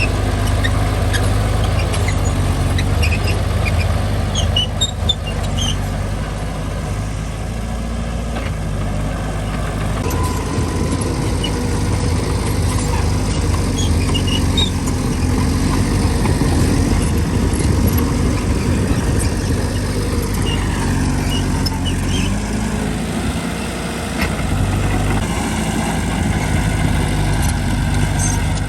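Diesel engine of heavy earthmoving machinery running steadily, with short, high squeaks scattered through it.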